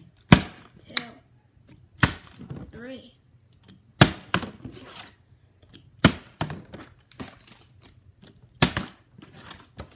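A partly filled plastic water bottle flipped again and again, smacking down on a wooden floor about every two seconds. There are five sharp landings, each followed by a lighter knock or two as it rocks or is picked up.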